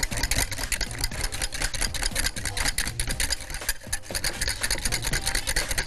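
Wire whisk beating egg yolks in a glass bowl over hot water, the wires scraping and rattling against the glass in rapid, even strokes: hollandaise sauce being whisked as it thickens.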